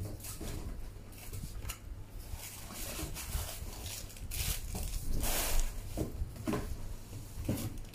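Scattered rustles and knocks of parcel packaging and items being handled, with a few louder rustles about halfway through, over a steady low hum.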